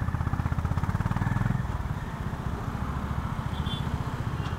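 Motorcycle engine running while riding in slow traffic, its exhaust pulsing evenly; it swells a little about a second in and eases back about two seconds in.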